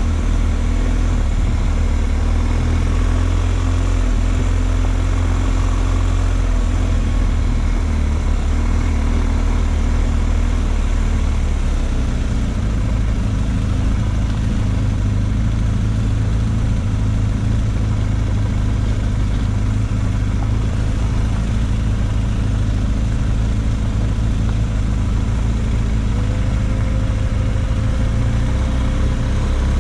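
Off-road vehicle engine running steadily, a loud low rumble that shifts in pitch about twelve seconds in.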